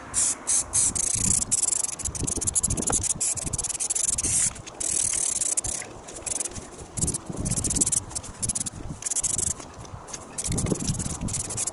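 Aerosol can of black stone-chip paint spraying in repeated bursts of hiss, some brief and some lasting a second or more.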